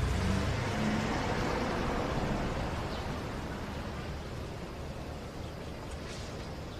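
Low road-traffic rumble that fades gradually over the first few seconds, leaving a quieter steady background hiss.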